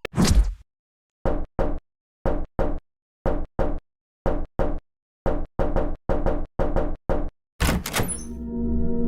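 Knocking on a door: pairs of sharp knocks about a second apart, coming faster toward the end. About a second before the end there is a loud hit, and then a low droning music begins.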